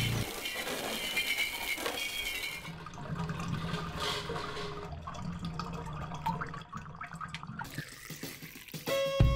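Birds chirping for the first couple of seconds, then liquid trickling and splashing over a low steady hum, like spirit running from distillation equipment into glass. Violin music comes in right at the end.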